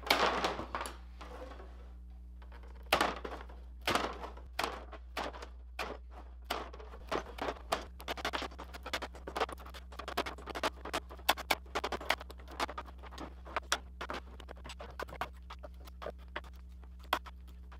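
Short pieces being cut off a thin wooden strip with hand cutters: a string of sharp snaps and clicks, irregular, a few each second, with a low steady hum underneath.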